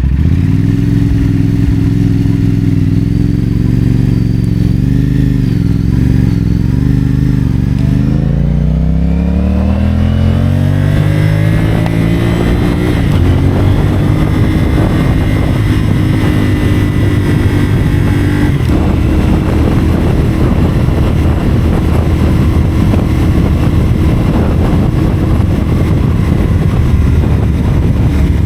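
CFMoto 450SR's 449 cc parallel-twin engine through a Yoshimura AT2 slip-on exhaust, running steadily at low revs, then pulling up smoothly in pitch about eight seconds in as the bike accelerates. It then holds a higher, steady cruise under a rising rush of noise.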